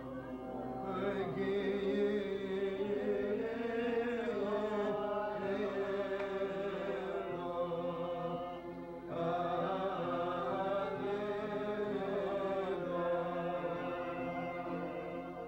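A man singing a slow, chant-like melody to his own acoustic guitar, with a short break between phrases about nine seconds in.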